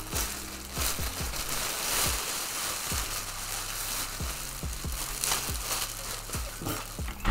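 Thin plastic rain poncho crinkling and rustling continuously as it is pulled on over the head and shaken down over the body, with many small crackles.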